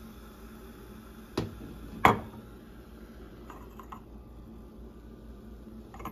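Glass kombucha bottle being handled: two sharp clicks about two-thirds of a second apart, the second much louder with a short trailing ring, then a few faint clicks.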